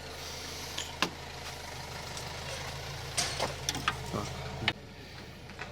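A steady low engine-like hum that cuts off near the end, with several sharp clicks and knocks of metal tools and parts being handled.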